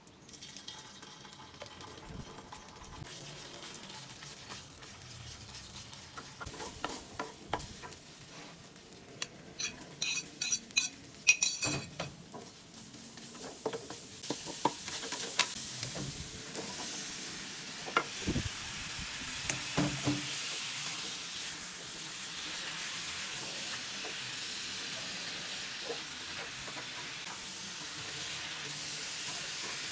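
Hot oil sizzling in a nonstick wok while red chili paste, then sliced onion and celery, are stir-fried, with spatula and spoon scraping and knocking against the pan. A cluster of sharp clinks comes before the halfway point; after it the sizzling grows louder and steady.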